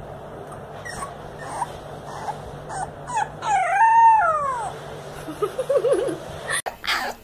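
Beagle puppy howling: a few short yips, then one long howl that rises and falls in pitch, the loudest sound, and a short wavering call trailing off after it.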